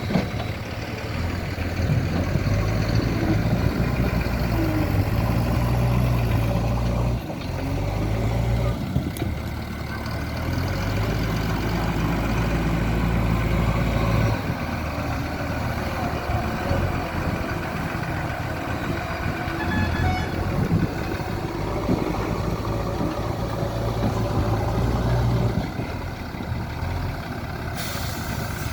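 Diesel engine of a JCB 3DX backhoe loader working its hydraulics while loading a tipper lorry. The engine note rises and falls, swelling under load for several seconds at a time, three times.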